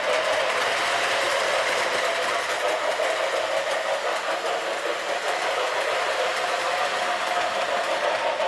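Electric O-27 three-rail toy train running on the track: a steady motor whine with wheel and rail rumble.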